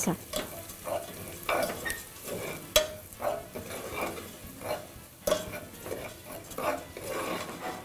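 Metal spoon stirring and scraping in a stainless steel pot of frying bacon fat as coarse cassava flour is poured in, with a light sizzle under the strokes. Two sharp clinks of the spoon on the pot, about three and five seconds in.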